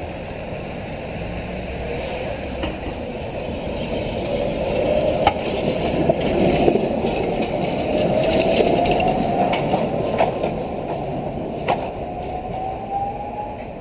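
Tram running along street track: steady rolling noise that swells and then eases, with the traction motor's whine rising in pitch and a few sharp clicks from the wheels over the rails.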